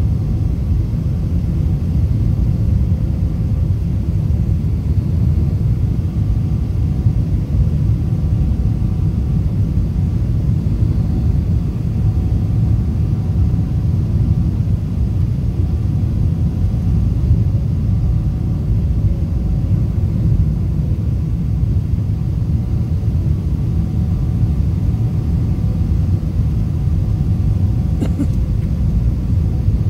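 Steady low rumble of a jet airliner's engines and rushing air, heard from inside the passenger cabin on final approach with the flaps extended, under a faint steady hum. A brief click near the end.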